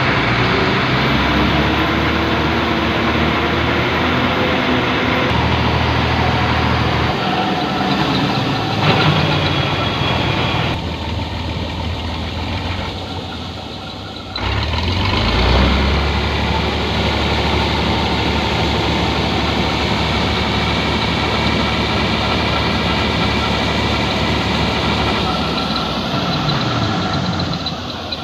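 Kuldeep 932 combine harvester's diesel engine running steadily while its unloading auger pours threshed wheat into a tractor trolley. The sound changes abruptly about halfway through.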